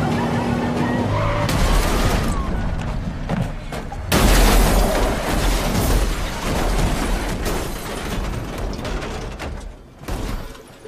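Film-soundtrack vehicle crash: a truck collides with a car, with a noisy burst near two seconds and a loud smash about four seconds in that dies away over several seconds, with film score underneath at the start.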